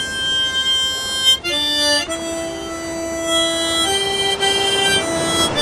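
Harmonica playing a slow melody of held notes, with a quick run of short notes about a second and a half in.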